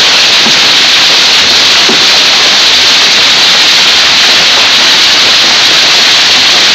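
A hailstorm with heavy rain, hail and rain coming down hard as a loud, steady, dense hiss.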